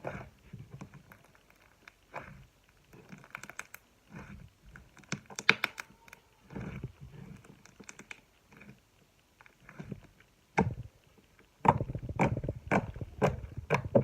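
Slime being squished and poked by hand: irregular squelches with sharp little pops and clicks, coming in separate bursts and crowding together more thickly near the end.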